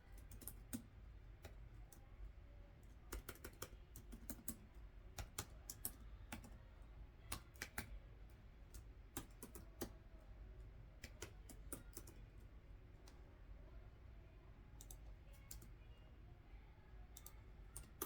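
Typing on a computer keyboard: irregular runs of quiet, sharp key clicks, thickest in the first two-thirds, then thinning to a few scattered clicks.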